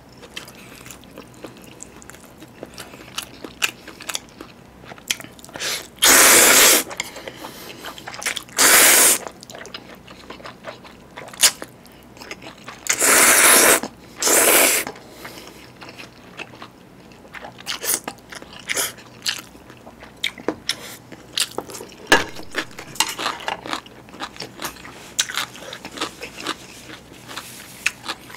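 Close-miked eating of spicy instant jjolmyeon noodles: four loud noodle slurps, two about a quarter of the way in and two around halfway, with wet chewing and small mouth clicks in between.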